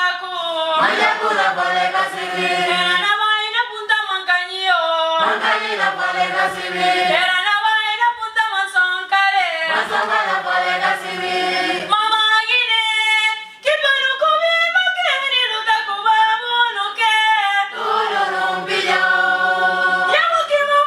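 Choir of men and women singing unaccompanied, a woman's voice leading, in phrases of a few seconds each with a brief break about two-thirds of the way through.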